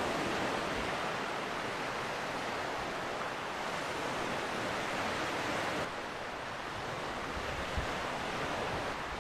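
Sea surf washing steadily onto the shore, with wind on the microphone; a short low wind bump near the end.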